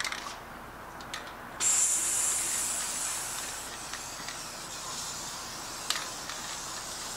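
Aerosol can of DAP Weldwood Multipurpose Spray Adhesive spraying onto the back of a paper print: one long hiss that starts suddenly about a second and a half in and slowly tapers off. A few light clicks come before it.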